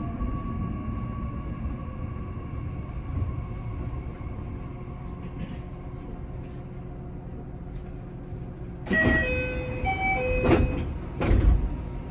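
JR West 227 series electric train at a stop: a faint whine fading over the first few seconds, then about nine seconds in a door chime of short pitched notes sounds and the sliding passenger doors move with two thuds.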